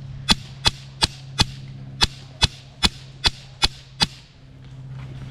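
Airsoft rifle fired semi-automatically: ten sharp shots in a quick steady rhythm, about two and a half a second, stopping about four seconds in. A steady low hum runs underneath.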